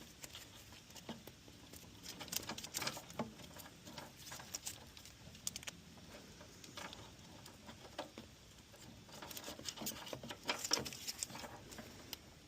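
Old electrical tape being peeled and unwound from a car's wiring harness: irregular small crackles and rustling, busier in the last few seconds.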